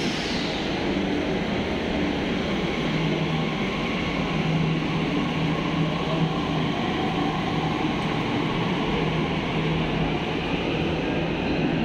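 Steady rumble and low hum of a metro train standing at an underground platform.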